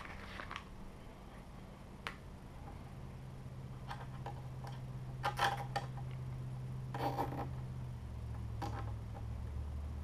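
Nylon zip tie being pulled tight around the heatbed's wire bundle: a few short rasping pulls of the strap through its ratchet, with small handling clicks. A steady low hum runs underneath and drops in pitch near the end.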